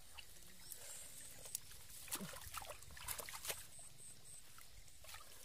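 Hands squelching and splashing in shallow muddy water, in scattered short wet clicks, while groping through mud for catfish. Faint high-pitched chirps come in short runs behind it.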